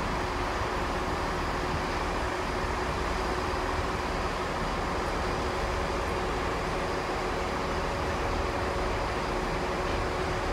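Steady hum and rumble of diesel trains at a railway station platform, holding a few constant tones with no rise or fall.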